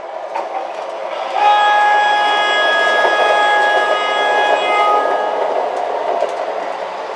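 MTH Protosound-3 O-gauge model streetcar running on track, with a steady rolling rumble throughout. About a second and a half in, its onboard sound system sounds a steady multi-tone horn for about three and a half seconds.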